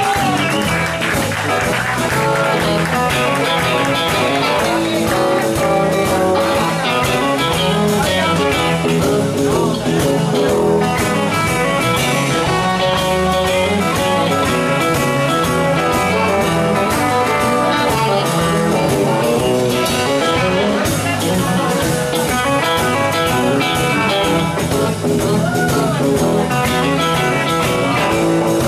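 Live electric blues band playing a blues instrumental: two electric guitars, a semi-hollow-body and a Stratocaster-style solid-body, over electric bass and a drum kit, at a steady beat.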